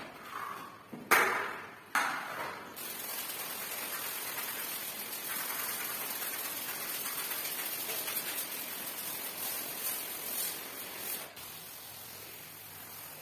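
Long-handled scrub brush scraping the wet, soapy rug, with two sharp knocks about one and two seconds in. Then a steady, hissing rush of water sprayed across the tiled floor, driving the foam away. Near the end it gives way to a quieter, steady pour from a watering can onto the rug.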